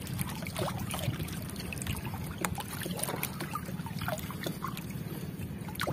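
Seawater splashing and trickling as a fine-mesh hand scoop net is swept through shallow water and lifted out to catch krill shrimp, with scattered small drips and splashes over a steady low rumble.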